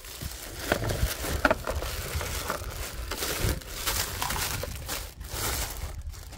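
Tissue paper crinkling and rustling as hands unwrap and rummage through it, with irregular sharper crackles.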